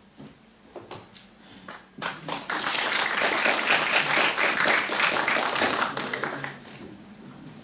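Audience applauding: a few scattered claps, then a full round of applause starting about two seconds in that dies away near the end.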